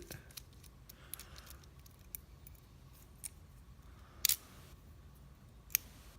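Hands handling a small lock and its parts: scattered light clicks and taps, with two sharper clicks about four and a quarter and about five and three-quarter seconds in.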